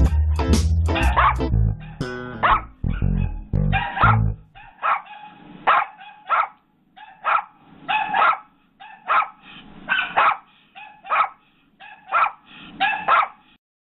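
Yorkshire terrier barking over and over in short, high-pitched yaps, about one or two a second. Background music plays under the first four seconds and then stops.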